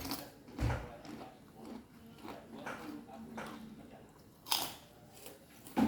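A person eating: irregular bites and chewing with some crunching, the loudest crunch about four and a half seconds in.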